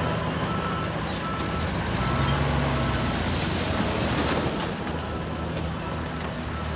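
Heavy diesel earthmoving machine running steadily while a reversing alarm beeps about once every three-quarters of a second, with a swell of hiss near the middle.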